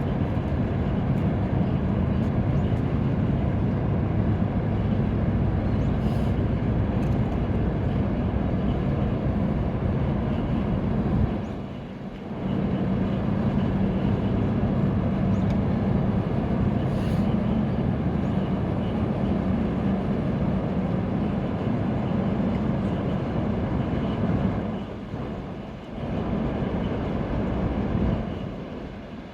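Steady low rumble on board a Sado Kisen ferry under way as it leaves port. The level dips briefly about twelve seconds in and twice near the end.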